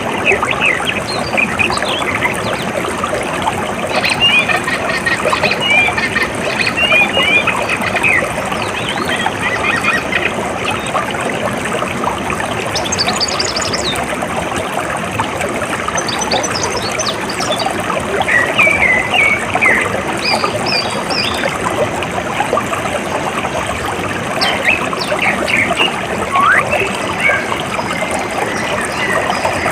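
Steady flowing, trickling water, with birds chirping on and off over it in short bursts of calls.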